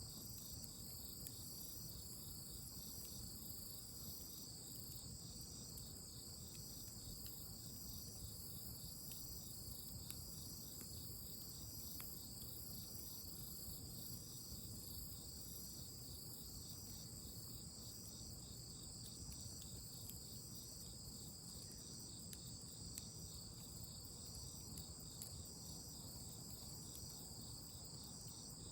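Crickets chirping in a steady night chorus, one of them trilling in even pulses about one and a half times a second, with a few faint scattered ticks.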